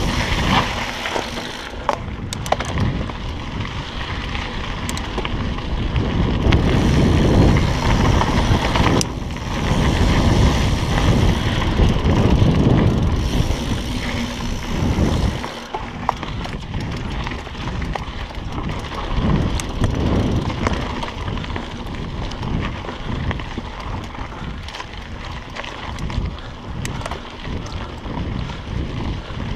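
Mountain bike riding fast down dirt singletrack: a steady rush of wind on the microphone over the crunch of tyres on dirt, with frequent clicks and rattles from the bike jolting over bumps. It is loudest in the first half and eases somewhat after about fifteen seconds.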